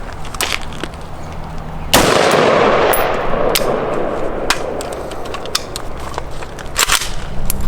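AR-15 rifle, frozen in dry ice, being fired: a handful of sharp shots at uneven intervals. The loudest comes about two seconds in and is followed by a long rushing tail.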